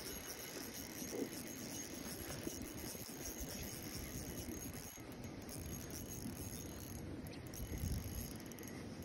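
A spinning reel being cranked through a steady retrieve, a soft, even mechanical rattle over outdoor background noise, with a dull low thump about eight seconds in.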